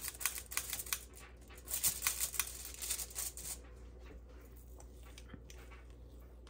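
Quick crinkly rustling and scratchy clicks from hands handling things at the kitchen counter, lasting about three and a half seconds and then dying down to faint room noise.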